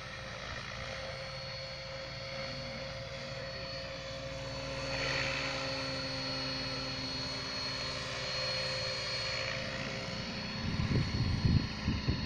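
Mikado Logo radio-controlled model helicopter in flight, its motor and rotors giving a steady whine that swells about five seconds in. Irregular low rumbling bumps come in near the end.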